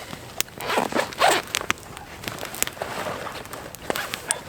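A zip being pulled in a few quick rasping strokes about a second in, with scattered sharp clicks before and after.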